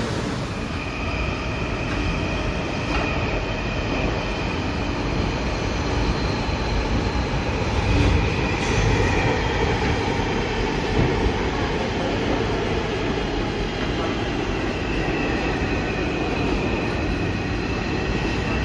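R160 subway car running between stations, heard from inside the car: a steady rumble of wheels on rail with a faint high tone drifting slowly in pitch above it, growing a little louder around the middle.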